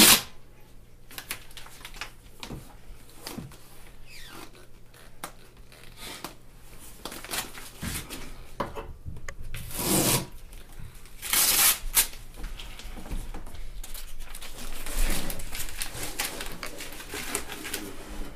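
Packing material being rustled and torn off a plastic enclosure, with scattered clicks and knocks of handling. There are two louder rushes of tearing and rubbing, about ten seconds in and a second and a half later.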